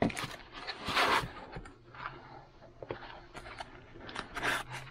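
Packaging being handled: a plastic parts bag, a foam insert and a cardboard box rustling and scraping in several short bursts, the loudest about a second in.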